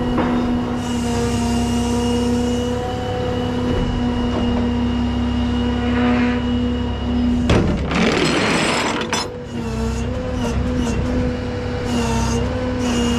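Peterbilt rollback tow truck running at idle, a steady hum with a whine over it. About seven and a half seconds in comes a short, loud rush of noise.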